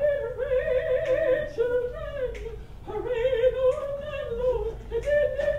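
A woman singing without words, holding long notes with vibrato, with a short break about three seconds in.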